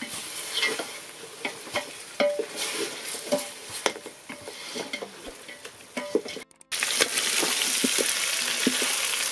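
Wooden spoon stirring chicken pieces in a metal pot, with scrapes and knocks against the pot over a light sizzle. After a brief break about six and a half seconds in, a louder, steady sizzle of the chicken frying in its own fat now that the water has cooked off.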